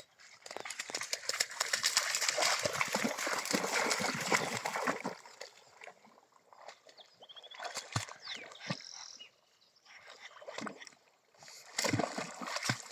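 Water splashing and sloshing in two stretches: a steady run of several seconds at the start, then a pause with a few knocks, and more splashing near the end.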